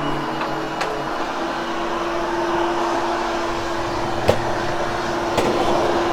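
Vacuum cleaner running steadily over carpet, post-vacuuming a freshly cleaned carpet to pick up loosened cat hair, with a steady hum and a few sharp clicks.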